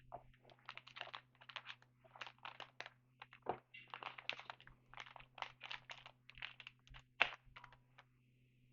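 Trading card pack and cards being handled: a quick, irregular run of crinkles, crackles and small snaps as the wrapper is worked open and the cards are slid and flicked through, with a faint steady hum underneath.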